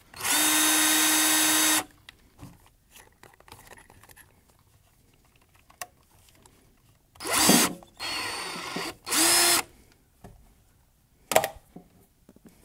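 Hand-held power drill working into a van's wall panel in three bursts: a steady run of about a second and a half at the start, then two shorter bursts a little past halfway whose pitch rises as the motor speeds up. A single sharp click comes near the end.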